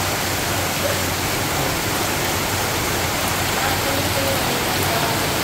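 Heavy rain falling steadily on ground and roofing, a dense, even hiss with no let-up.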